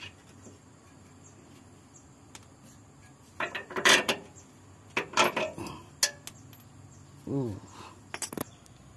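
Metal hand tools, a socket extension and spanner, clinking and knocking against the bolts and underbody of a Mitsubishi Storm while the propeller shaft centre-bearing mount is being unbolted. The knocks are irregular, a few short metallic clanks with brief ringing, starting about three seconds in.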